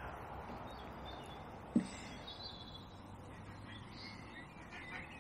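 Quiet background ambience with faint bird calls, and one short knock a little under two seconds in.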